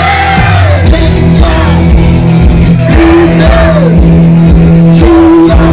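A rock band playing with a singer: a held, sung melody over bass, electric guitar and drums. The drum beat comes in about half a second in.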